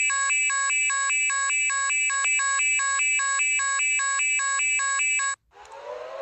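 Emergency alert alarm: a loud electronic tone rapidly switching back and forth between a lower and a higher pitch, about three times a second. It cuts off suddenly near the end, and a siren begins winding up in pitch.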